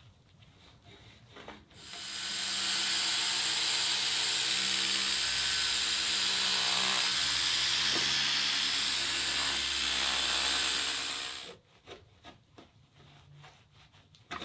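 Small power tool with a polishing head running steadily for about ten seconds, polishing the inside of a stainless exhaust tip. It starts about two seconds in and stops suddenly. Faint towel-wiping sounds come before and after.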